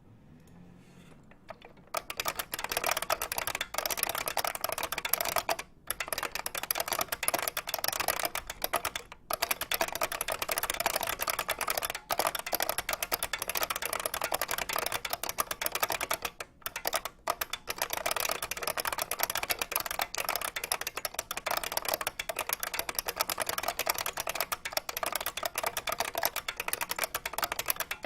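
IBM 3276 beam spring keyboard being typed on quickly, a dense stream of sharp key clicks that starts about two seconds in, with a few short pauses.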